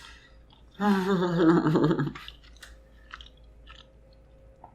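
A woman eating pizza gives a drawn-out closed-mouth "mmm" of enjoyment for about a second and a half, then goes on chewing with faint wet mouth clicks.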